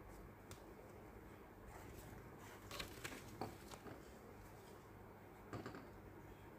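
Near silence with a few faint taps and rustles from hands handling thread-wrapped cardboard craft pieces on a tray, in two small clusters, near the middle and about a second before the end.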